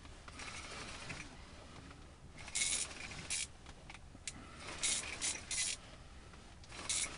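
Handling noise from the angler working the rod and gear inside the shelter: a string of short, hissy rustles and scrapes, bunched in the middle of the stretch, with one more near the end.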